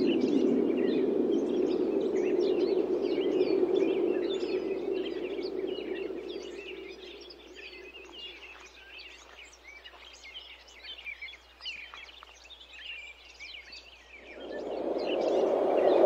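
Wind blowing in gusts: a low rushing noise that dies away about halfway through and swells again near the end. Many small birds chirp throughout.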